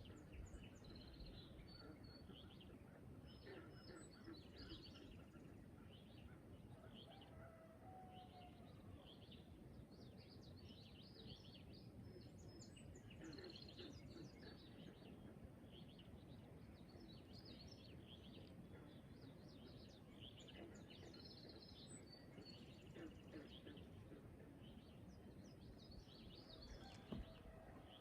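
Faint morning chorus of many birds chirping and singing in short, scattered calls, over steady low background noise.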